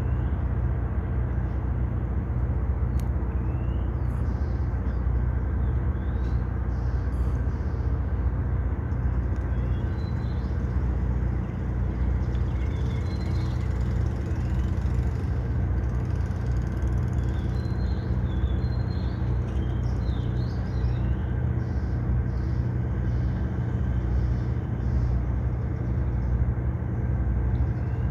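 Steady low engine rumble from motor traffic, with faint, short, high chirps now and then.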